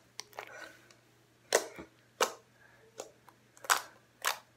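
White homemade slime being kneaded and squeezed by hand, giving off sharp pops and clicks about six times at uneven intervals as it is pressed and pulled.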